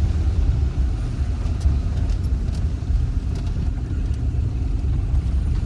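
4x4 Jeep driving on a rough mountain track, heard from on board: a steady low rumble of engine and ride, with a few faint clicks and rattles.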